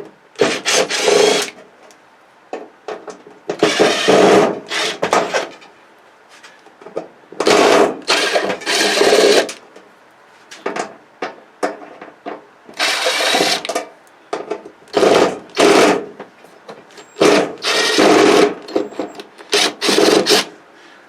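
Power screwdriver or cordless drill running in short bursts of one to two seconds, about seven times, backing screws out of a flat-screen television's metal back panel.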